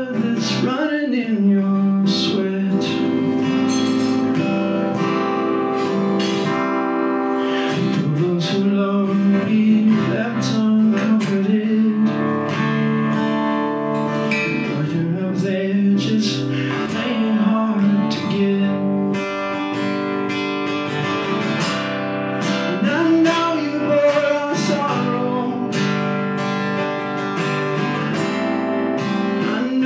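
Acoustic guitar strumming and picking through an instrumental passage of a song.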